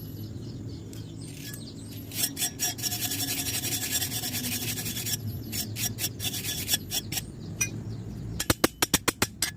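Electric arc welding crackling densely on steel plate for about three seconds, with scattered pops after it, then a quick run of about eight sharp taps near the end.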